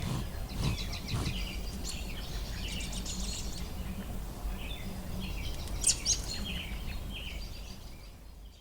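Small birds chirping and twittering again and again over a steady low background rumble; the sound fades out near the end.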